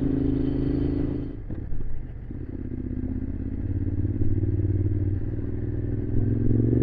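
Motorcycle engine running on the move. The engine sound eases off briefly about a second and a half in, then picks up again steadily, and its pitch rises near the end as the bike speeds up.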